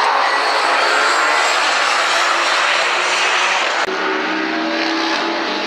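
Engines of several racing cars driving past at speed, a dense layered engine note with no pause. The note changes abruptly about four seconds in to a second group of cars.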